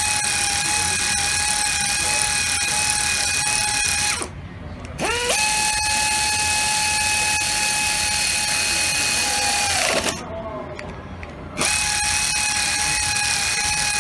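Pneumatic inline screwdriver running on air with a steady high whine as it drives bolts in. It stops about four seconds in, spins up again a second later, winds down about ten seconds in, and starts again a moment afterwards.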